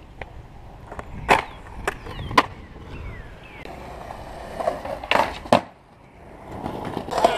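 Skateboard on concrete: wheels rolling, broken by several sharp clacks of the board striking the ground, the loudest pair about five seconds in.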